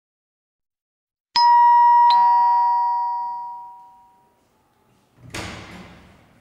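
Two-tone doorbell chime going ding-dong: a higher tone, then a lower one under a second later, both ringing out over a couple of seconds. A short burst of noise follows near the end.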